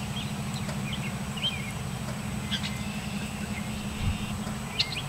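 Scattered short bird chirps over a steady low mechanical hum.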